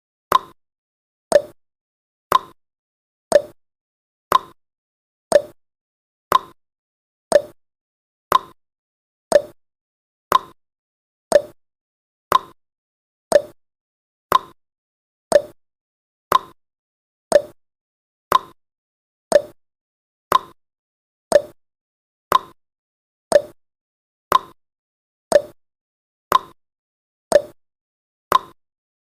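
Countdown timer sound effect: a short, sharp tick once every second, evenly spaced, about 29 in all.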